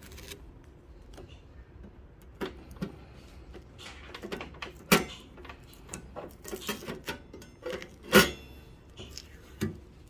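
Fingers picking at and peeling protective tape off a clear plastic panel on a stainless-steel espresso machine top: light scratching with scattered small clicks and taps. The loudest taps come about five and about eight seconds in.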